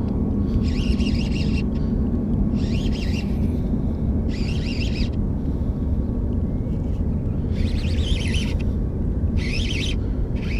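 Baitcasting reel cranked in short bursts of about a second, five times, while a hooked fish is reeled in, over a steady low rumble.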